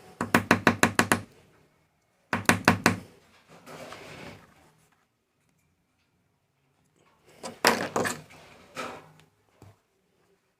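Small gas-lighter parts being knocked and scraped while carbon is cleaned out of them: short runs of rapid knocks, about eight a second, with a softer scraping stretch in between and a few more strikes near the end.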